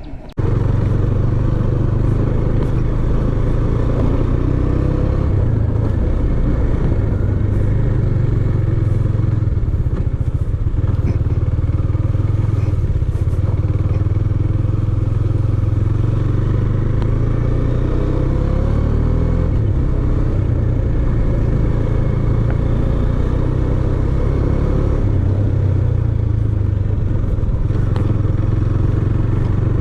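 Motorcycle engine running under way, a steady drone with wind and road noise, its pitch rising and falling now and then with the throttle.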